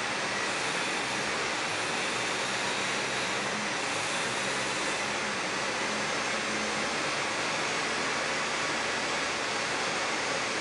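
Toyota 8FGV25 LP forklift running steadily while its three-stage mast lowers the forks from full height to the floor.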